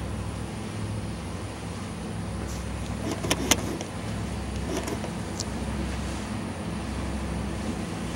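A motor engine running with a steady low drone, with a few sharp clicks a little after three seconds in and again around five seconds.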